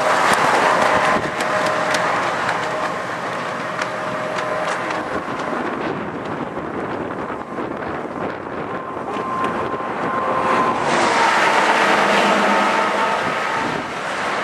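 Wind gusting over the microphone, loudest near the start and again about two-thirds through, with faint steady whining tones underneath.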